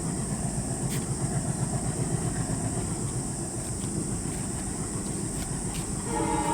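Twin ALCO diesel locomotives approaching, their engines giving a steady, pulsing rumble. Near the end the locomotive horn starts sounding, a chord of several notes.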